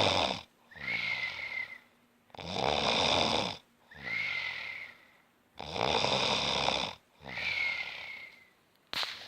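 Steady snoring in a slow, regular rhythm of about three seconds per breath, three breaths in all. Each breath has a loud, low rattling snore, then a quieter breath with a thin whistle in it. A short sharp click comes near the end.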